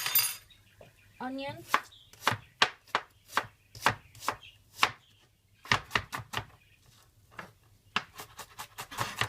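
Knife chopping a small onion, a run of sharp chops about two to three a second, with a brief pause a little past five seconds in.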